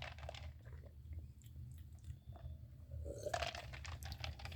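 Faint scattered clicks and handling rustle over a steady low hum. About three seconds in it turns into denser rustling with many small clicks.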